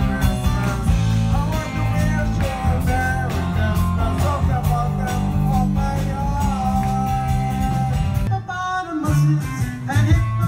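Live soul band playing with electric bass, drums and a man singing into a microphone. About eight seconds in, the sound cuts abruptly to a woman singing with the band.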